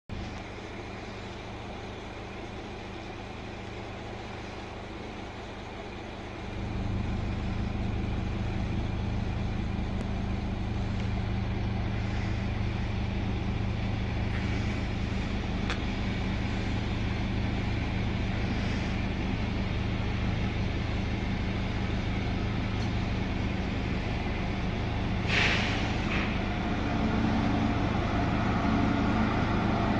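Electric locomotive and its train running through the station: a steady electric hum with running noise that grows louder about six seconds in. Near the end comes a short burst of air hiss.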